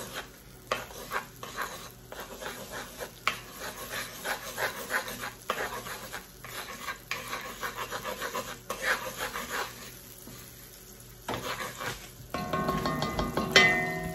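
A wooden spatula scraping and stirring melting butter around a cast iron wok, in repeated short strokes over a faint sizzle. The stirring stops about ten seconds in, and near the end a louder sound with several steady pitches cuts in.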